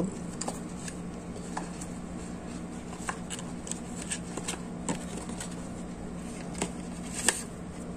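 Thin paperboard packaging being unfolded and opened by hand: scattered soft taps, rustles and clicks of card and paper, with a sharper tick near the end.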